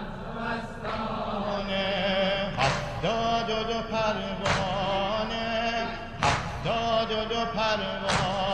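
A Shia noha mourning chant: a man's voice sings a held, wavering melodic line over a steady low tone. From about two and a half seconds in, a sharp beat falls in time roughly every two seconds.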